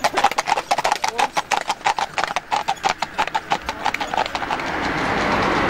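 Hooves of a four-horse team pulling a carriage, clip-clopping in a quick, even rhythm. About four seconds in the hoofbeats fade under a rising, steady rushing noise.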